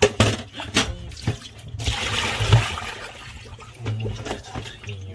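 Water sloshing and splashing in a sink basin as a rock octopus is squeezed and gutted by hand. A few sharp knocks come in the first second or so, and a longer rush of splashing about two seconds in.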